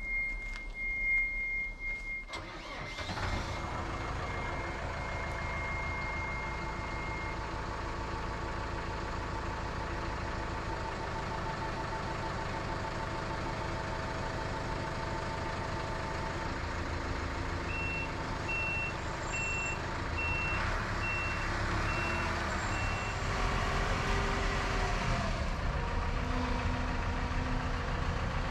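Manitou telescopic crane-loader's diesel engine starting about two seconds in, after a steady warning buzzer, then running steadily. In the second half its warning beeper sounds about eight short, evenly spaced beeps, and the engine gets louder near the end as the machine moves off.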